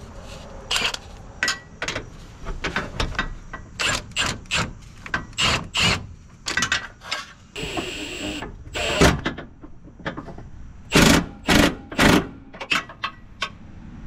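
Nut being tightened onto the bolt of a new front body mount: irregular metallic clicks and clanks of wrench and socket on the bolt, with a cordless ratchet running briefly about eight seconds in.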